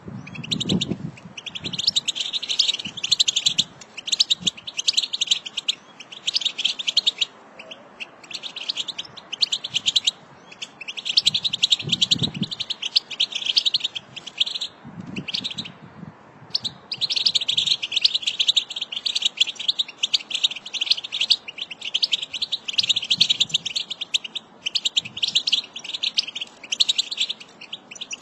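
American goldfinch song: long bouts of rapid, high twittering and chirping, broken by brief pauses every few seconds.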